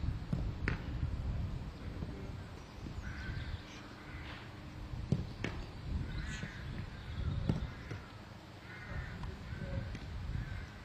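Footballs struck on a training pitch: several sharp thumps, two of them close together about five seconds in, among short distant calls.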